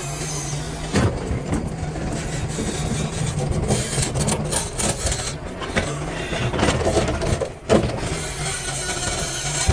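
DLC 225 excavator's diesel engine running steadily under load while its bucket knocks and scrapes against blasted rock, with a few sharp knocks standing out, the loudest about a second in and near the end.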